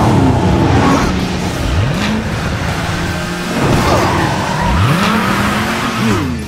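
Cartoon race-car engine sound effect revving hard, rising in pitch twice, with tires screeching, over background music.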